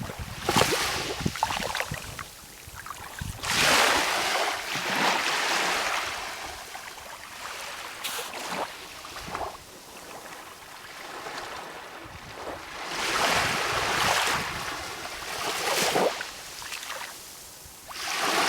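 Calm sea waves washing in, the hiss of water swelling into louder surges every few seconds and easing back between them.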